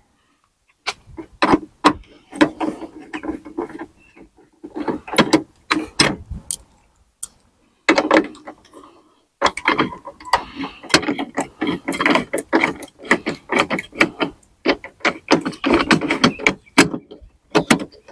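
Tool and part clatter from removing an old plastic exterior door handle on a truck's rear door: irregular clicking, clacking and rattling as its Torx screws are worked out and the handle is pried loose. The clicking grows dense and nearly continuous about halfway through.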